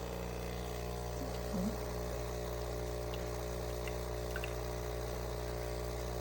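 Small coffee-appliance motor running with a steady, even hum of several low tones.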